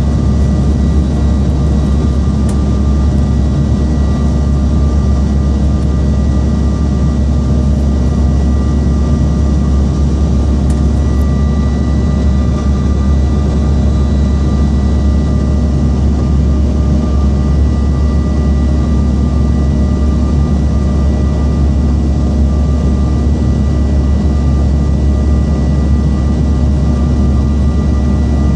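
Steady cabin noise of a Bombardier CRJ900 on final approach: its rear-mounted General Electric CF34 turbofans and the airflow make a constant low rumble, with a few thin steady whines above it. One whine grows a little stronger about twelve seconds in.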